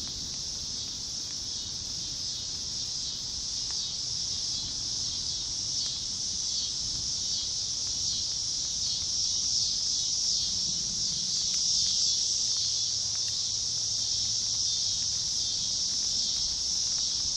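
Steady, high-pitched chorus of insects trilling, with a low wind rumble on the microphone underneath.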